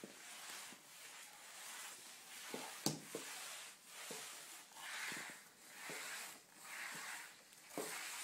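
Swiffer dry-cloth mop pushed side to side over a tiled floor: a soft, rhythmic swishing with a few light taps, the loudest about three seconds in.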